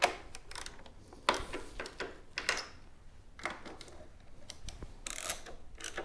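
Ratchet of a torque wrench clicking at irregular intervals, with small metal handling noises, as a fairing stud nut is tightened.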